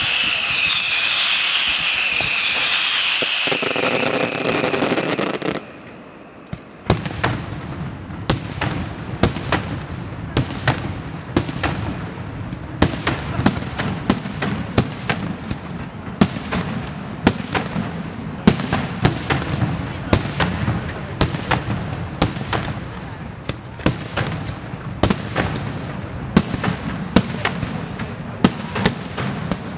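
Fireworks display. For the first five seconds there is a loud, steady rushing noise that cuts off suddenly. About seven seconds in, a string of sharp firework bangs begins, one or two a second, each with an echoing tail.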